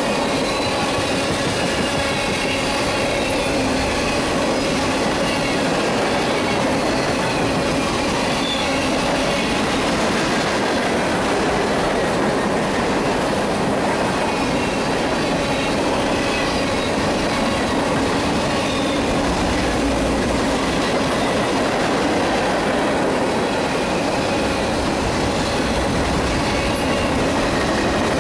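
Freight cars of a mixed manifest train (tank cars, covered hoppers and boxcars) rolling steadily past on the near track: a continuous noise of steel wheels on rail, with faint steady whining tones above it.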